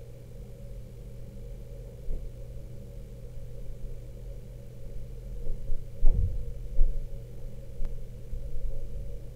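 Steady low background hum with a few soft, low thumps as the corset is handled and hand-stitched, the strongest about six seconds in.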